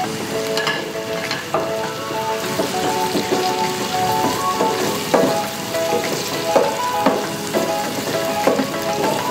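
Diced onions and ginger-garlic paste sizzling in hot oil in a pan. A wooden spatula stirs them, knocking and scraping against the pan several times.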